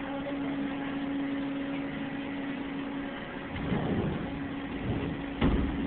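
Steady hum of running machine-shop machinery, joined about two thirds in by a rougher, louder low rumble, with one sharp knock near the end.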